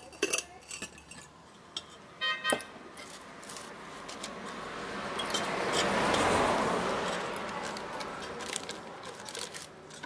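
Metal parts of a homemade pump, a pipe and motor stator bracket, clinking and tapping as they are handled on a concrete floor, including one short ringing clink. Then a rushing noise swells up over a few seconds and fades away.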